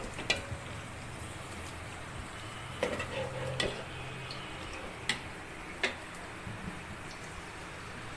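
Steel ladle stirring laccha semai in milk in a steel pot, with a handful of sharp clicks as the ladle knocks the pot's side, over a steady low hiss.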